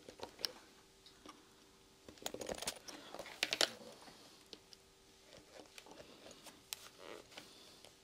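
Light clicks and scrapes of a small hand screwdriver and screws working against a metal bar-clasp wallet frame. They come irregularly and bunch together about two and three and a half seconds in, over a faint steady hum.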